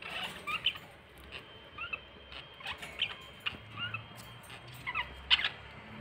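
Budgerigars chirping in a cage: short squeaky chirps, a few a second, the loudest about five seconds in.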